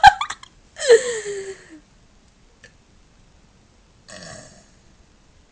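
A person burping: one drawn-out burp about a second in, falling in pitch, followed a few seconds later by a fainter breathy sound.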